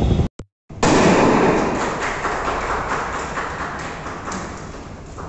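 A hand-held confetti cannon goes off with a sudden bang about a second in. A crackly, rustling noise follows and slowly fades.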